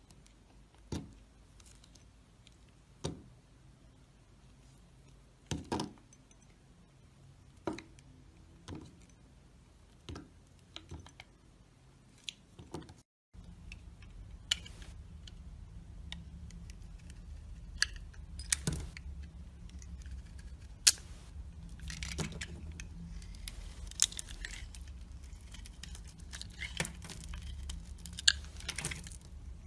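Knife carving a bar of dry soap: separate crisp scrapes and crackles every second or two, then, after a brief break about 13 seconds in, denser crackling cuts over a steady low hum.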